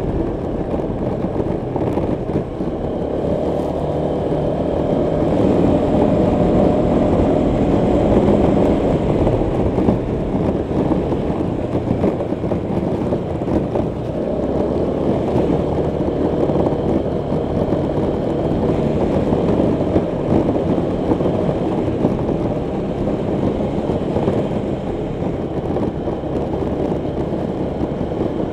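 Honda PCX 125 scooter's single-cylinder four-stroke engine running under way, with road and wind noise; the engine note swells and eases a few times as the throttle changes.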